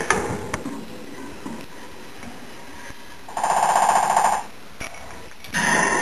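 A budgie's toy ball knocking and rattling in its cage, with a rapid, loud rattle about a second long just past the middle and another clatter near the end.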